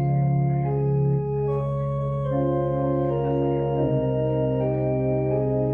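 Organ playing slow music: a low bass note held without fading under changing chords, with a melody moving above.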